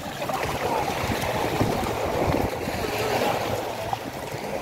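Shallow water swishing and gurgling around a hand scooping in wet sand at the water's edge, with small waves washing in.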